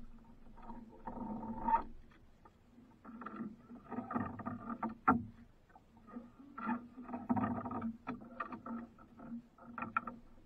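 Water sloshing and slapping against the hull of a small wooden outrigger canoe, coming in irregular bursts a second or two long, with a sharp knock about five seconds in.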